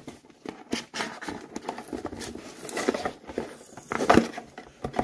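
Hands prying at the flaps of a cardboard toy box to open it: irregular scraping, tapping and rubbing of card, with a sharper knock about four seconds in.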